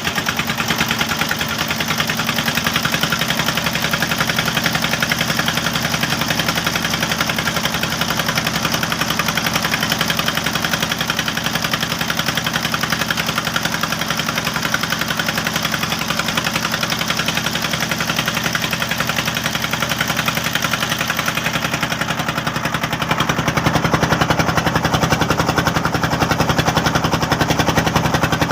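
A river boat's engine running steadily with a rapid, even chugging, growing louder about three-quarters of the way through.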